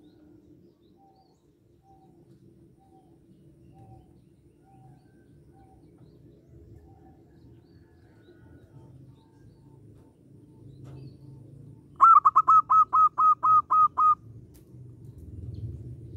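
Zebra dove (perkutut) calling: a quick, loud run of about nine short staccato notes lasting about two seconds, near the end. Earlier, faint short notes repeat about twice a second over a low, steady background hum.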